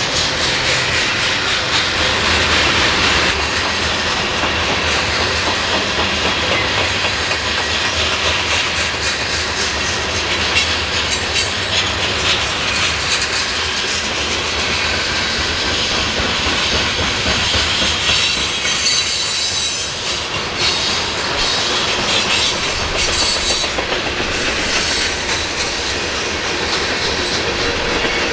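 A train passing at close range on the mainline: a steady rumble of steel wheels on the rails with clickety-clack over the rail joints, the clattering thickest about two-thirds of the way through.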